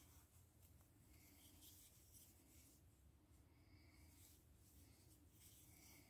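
Near silence with faint, scratchy rubbing of yarn drawn over a wooden crochet hook and through the fingers as stitches are worked, in short strokes over a low steady hum.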